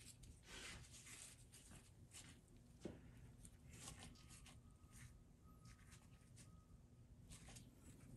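Near silence: faint room tone with a few soft ticks and rustles.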